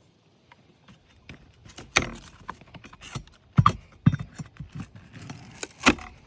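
Steel pry bar knocking and scraping under cedar roof shakes as it is worked in to pull a nail, a run of irregular clicks and rattles with a few sharp knocks, the loudest about two seconds in and again near the end.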